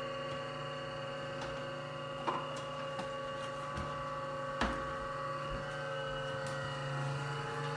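Air fryer toaster oven running, its fan giving a steady hum with several fixed tones, and a couple of light clicks about two and a half and four and a half seconds in.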